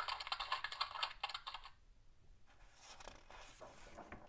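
A burst of crackling for the first second and a half. Then the page of a hardcover picture book is turned, with paper scraping and rustling.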